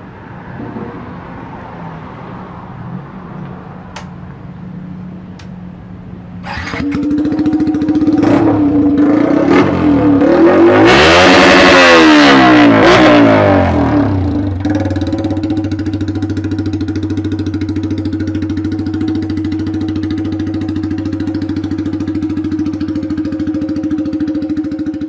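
Small-engine cafe racer motorcycle running, quieter at first, then revved up and down several times from about seven seconds in, the loudest part, before settling into a steady idle.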